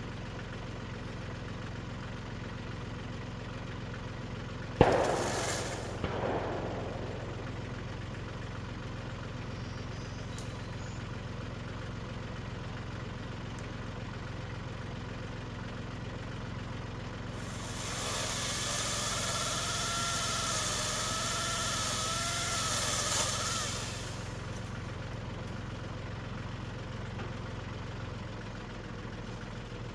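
Tractor engine running steadily at idle. There is a single sharp bang about five seconds in, and from about eighteen to twenty-four seconds a hissing whine that wavers in pitch.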